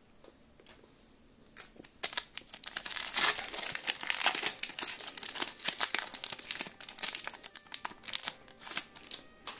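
Pokémon TCG Fusion Strike booster pack's foil wrapper crinkling and tearing as it is pulled open by hand. It starts about two seconds in and goes on as dense crackling.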